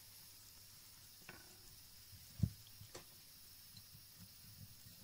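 Paring knife slicing through a peeled pear and knocking against a plastic cutting board: a few faint clicks and one soft thud about two and a half seconds in.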